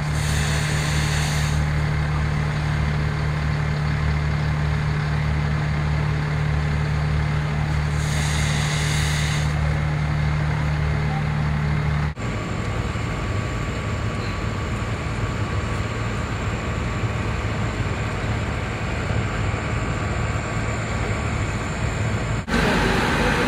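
Heavy diesel engines of fire engines running steadily at a fireground, a low hum, with two brief hisses in the first half. About twelve seconds in the hum gives way to a steadier rushing noise.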